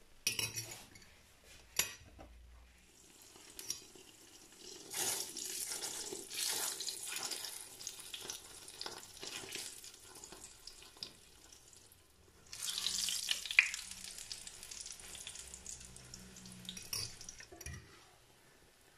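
Kefir flatbread dough frying in deep hot oil in a cast-iron pan: a hissing sizzle that swells about five seconds in and again at about twelve seconds, the second swell as the flatbread is turned. A few sharp clicks of a metal fork against the pan and plate.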